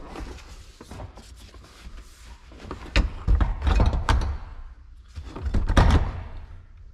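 Pickup truck front seat being shifted into place on the carpeted cab floor: repeated knocks and thumps of the metal seat frame against the floor, with rustling in between. The thumps cluster about three to four seconds in and again near six seconds.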